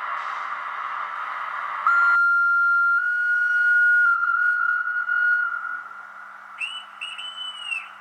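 Sound decoder of an H0 model SBB Re 4/4 electric locomotive playing its warning horn through the model's small speaker. Running noise gives way after about two seconds to one long steady horn note, and near the end come two short higher toots.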